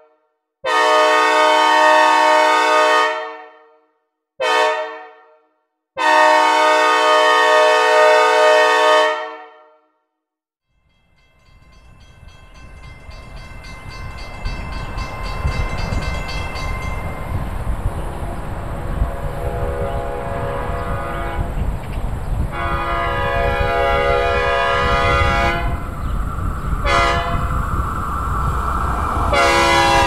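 Synthesized Nathan Airchime C5A-CWP train horn sounding a long blast, a short one and another long blast, each with a reverb tail. After a brief silence a train's rumble builds and the horn blows again, long, long, short, long, in the grade-crossing pattern. The last blast begins to bend in pitch as the train passes.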